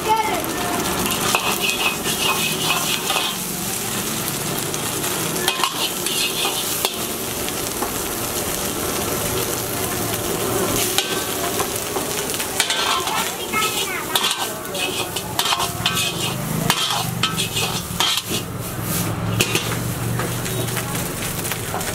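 Oil sizzling in a wok as a metal ladle stirs and scrapes, frying egg and then rice over a gas flame, with repeated clinks of ladle on wok.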